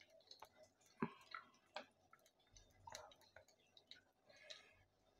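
Mustard seeds in hot coconut oil in a small steel pan, faintly crackling with scattered clicks as they begin to pop. The sharpest click comes about a second in.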